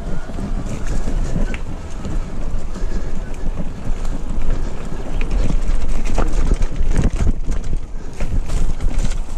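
Wind buffeting the microphone of a camera on a mountain biker riding fast down a dirt forest trail, with the bike knocking and rattling over roots and bumps, the knocks thickest from about six seconds in to near the end.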